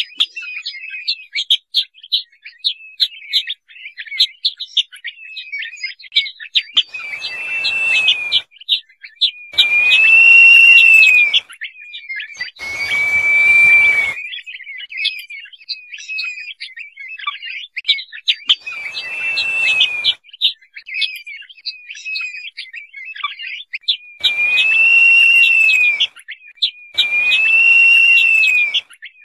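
Crested partridge (roul-roul) calling: about six drawn-out whistles, each a second or two long and rising then falling in pitch, over a steady stream of short, high chirps.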